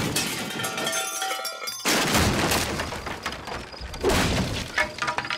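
Cartoon crash sound effects of someone falling down through a house: loud crashing and breaking, tinkling between the crashes, and two fresh heavy crashes about two and four seconds in.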